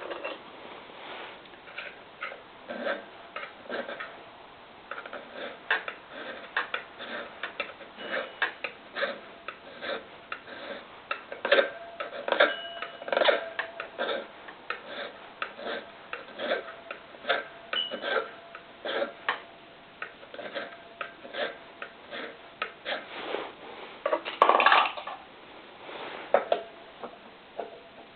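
Hand file scraping a small metal part in repeated short strokes, about one or two a second, taking a little more off so a pulley will fit. The metal rings faintly, and a louder stroke or knock comes about 24 seconds in.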